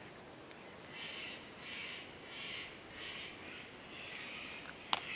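A bird calling over and over, about six short calls at an even pace, with one sharp click near the end.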